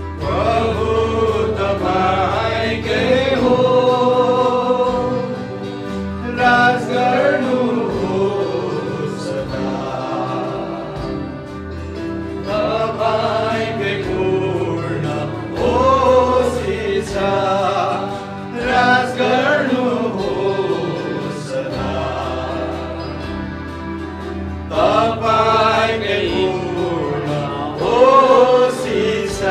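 Nepali Christian worship song: a male worship leader sings into a microphone over a live band of electric guitars, bass guitar and drums, with a group of voices singing along. The song runs in sung phrases with short breaks between them.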